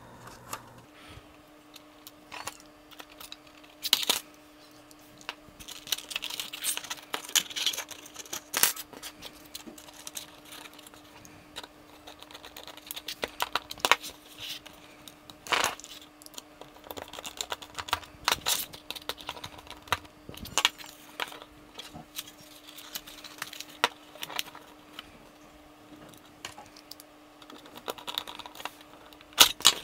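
Small screws being driven through metal drive brackets into a 2.5-inch SSD with a precision screwdriver: irregular light clicks and metallic clinks of the screwdriver, screws and brackets, with handling of the parts.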